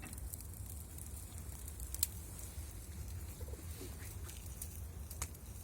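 Wood fire crackling, with a few sharp pops over a low steady rumble.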